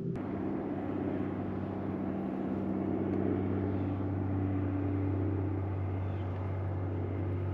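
Electric trolling motor on a fishing kayak humming steadily as it drives the kayak along, its pitch shifting as the speed changes right at the start, over a rush of water and wind.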